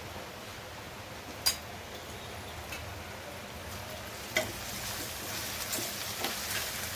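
Chopped onions sizzling in hot oil in a pan. There is a sharp clink about a second and a half in. From about four seconds in, the frying grows louder, with spoon clicks against the pan as ginger-garlic paste is stirred in.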